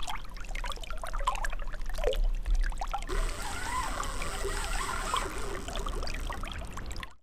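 Water trickling and splashing, with many small spattering sounds; the sound changes abruptly about three seconds in and cuts out just before the end.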